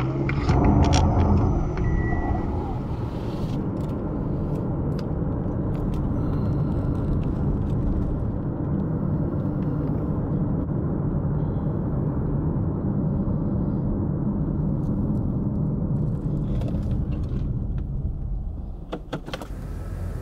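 A car driving along a road, its engine and tyre noise as a steady low rumble heard from inside the cabin. It is louder in the first couple of seconds, with a few clicks there and again near the end.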